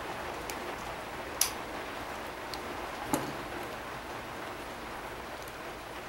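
A steady hiss, with a few light clicks and taps of small laptop parts being handled as the heat seal is fitted into place.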